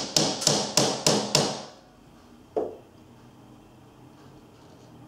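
Claw hammer driving a steel masonry nail through an MDF picture rail into a solid stone wall: a quick run of about five sharp blows, roughly three a second, ending about a second and a half in. About a second later comes one duller knock.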